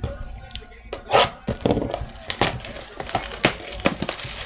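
A cardboard trading-card blaster box being handled and opened, with its plastic-wrapped card packs pulled out: crinkling wrappers and irregular sharp clicks and knocks of cardboard.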